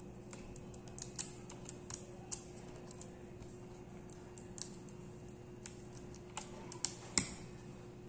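Scattered light clicks and taps from fingers handling small connectors and plastic parts inside an opened ASUS X420F laptop, with the sharpest click about seven seconds in. A faint steady hum runs underneath.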